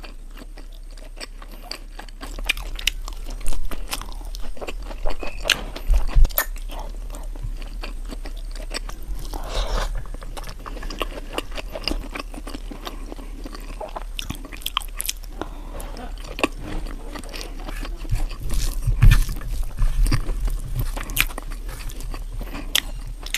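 A person eating close to the microphone, mukbang style: chewing and biting with many sharp clicks and crunches, over a low steady hum.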